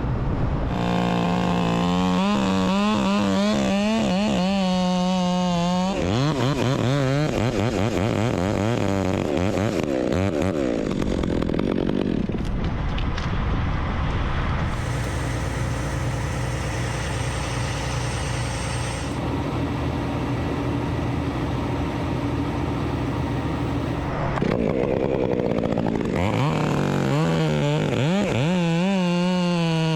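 Two-stroke chainsaw run at high throttle, its pitch rising and falling as the chain cuts, early on and again near the end. In between, a steadier, more even engine drone.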